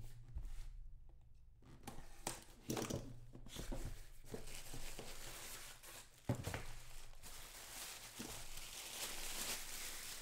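A cardboard trading-card box being torn open and the crinkly plastic wrapping inside it handled, with a couple of sharp knocks, one right at the start and one about six seconds in.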